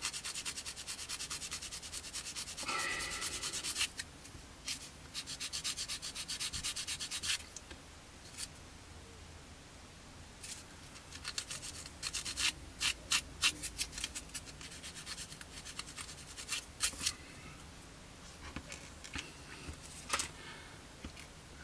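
A sponge sanding stick rubbed in quick short strokes over a small curved plastic model part, smoothing away a sprue attachment point. Dense runs of strokes come first, then sparser groups with short pauses between.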